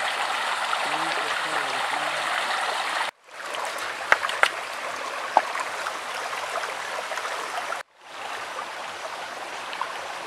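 Shallow forest stream running over rocks, a steady splashing rush of water. It breaks off abruptly for a moment twice, around three and eight seconds in, and a few sharp clicks sound in the middle.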